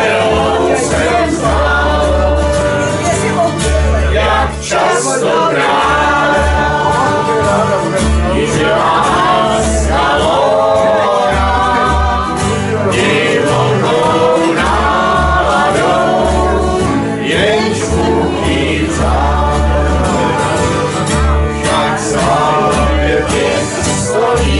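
Small acoustic folk band playing and singing: two acoustic guitars, an accordion and an upright double bass under several voices singing together, with a steady pulsing bass line.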